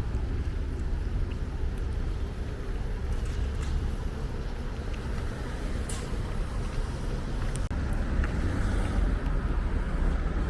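Street traffic ambience: a steady low rumble of passing vehicles with a few faint clicks.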